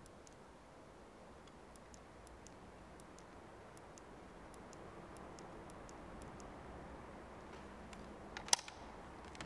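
Faint hiss with scattered light ticks and clicks, then a sharper cluster of clicks about a second before the end.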